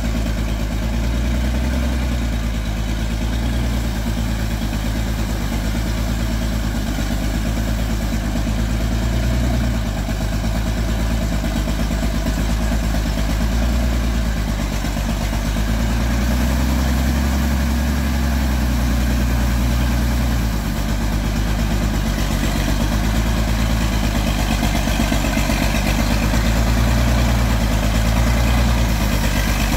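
Engine of a homemade wood-hauling truck running steadily, its low note shifting slightly a couple of times.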